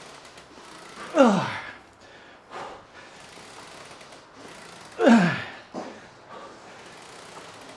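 A man groaning with effort through reps of heavy single-leg squats: two loud strained groans that fall steeply in pitch, about four seconds apart, with short breaths after each.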